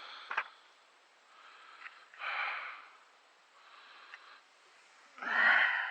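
A man breathing hard and grunting from the exertion of digging, in heavy noisy breaths. The loudest breath comes near the end.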